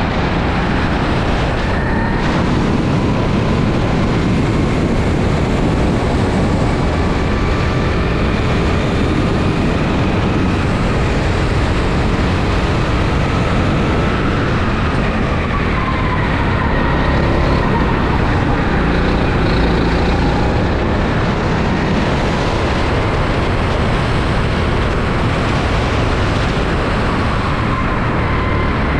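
Sodi rental kart engine running at speed on a lap, its pitch slowly rising and falling as the kart speeds up and slows for corners. Heavy, steady wind and road noise on the kart-mounted camera's microphone is louder than the engine.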